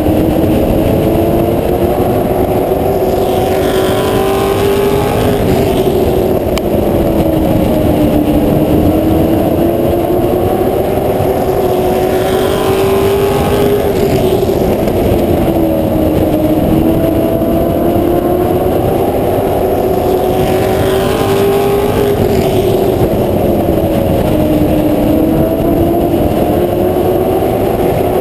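Charger-division race car's engine at racing speed on a short oval, its note climbing along each straight and dropping off into each turn, about every eight seconds. Wind rushes over the roof-mounted microphone.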